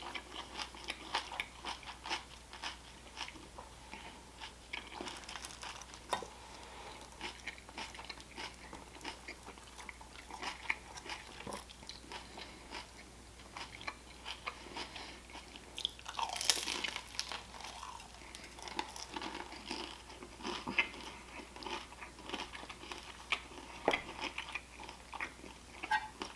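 Close-miked chewing and crunching of fried wontons and salad: many small irregular crunches and wet mouth clicks, with a louder crackly stretch about two thirds of the way through.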